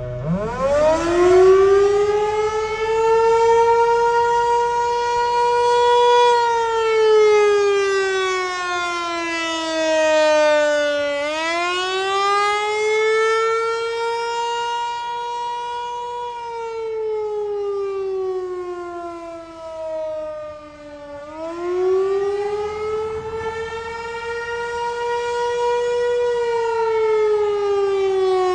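Federal Signal 508-128 electromechanical outdoor warning siren sounding the attack signal. It winds up from a low pitch just after the start, then wails in slow cycles about ten seconds long, climbing to a held high note and sliding back down.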